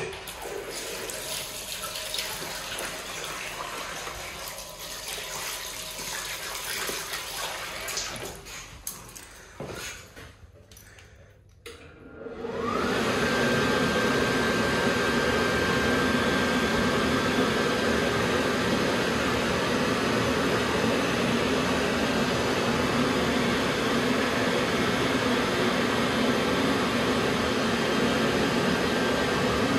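Tap water running into a stainless steel basin while hands are washed, dying away about ten seconds in. About twelve seconds in a Warner Howard electric hand dryer starts: its motor whine rises quickly to a steady pitch over a loud, even rush of air, and it runs steadily on.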